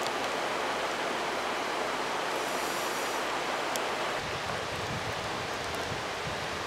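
Rushing whitewater of a fast river current, a steady hiss. About four seconds in, a low pulsing starts underneath.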